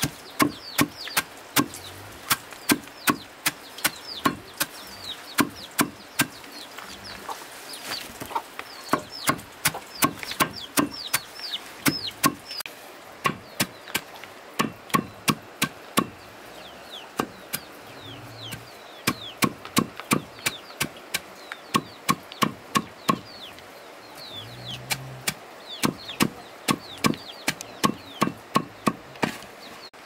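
Rapid chopping with a blade, about two to three sharp strokes a second, pausing briefly now and then, while chickens peep and cluck.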